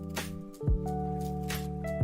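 Background music: held electronic chords over a deep kick-drum thump.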